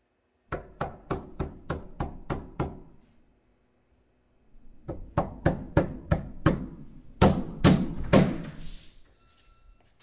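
Rapid knocking on a hard surface: a run of about eight sharp knocks at roughly three a second, a pause of about two seconds, then about seven more quickening into three heavier bangs with an echoing tail.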